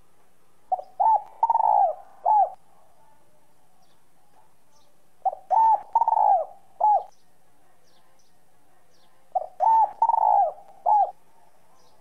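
Spotted dove cooing its call three times, each phrase a quick run of about four notes, one drawn out longer than the others. The voice is the high, clear type that keepers call 'whistle-voiced'.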